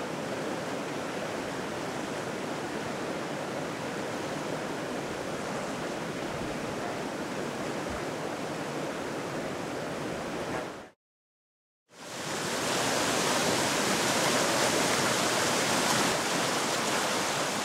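Swollen Whetstone Brook floodwater rushing steadily as it overtops its banks. The sound breaks off for about a second partway through, then comes back louder as a fiercer torrent.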